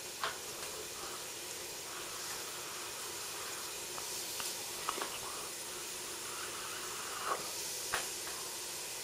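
Hot chocolate being sipped from a mug: a few short, faint slurps over a steady background hiss.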